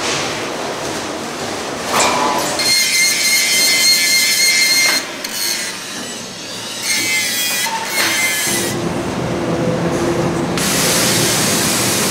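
Factory machinery noise in several short takes that change abruptly. There is a steady high whine from about three seconds in to about five seconds in, and a lower steady hum over the last few seconds.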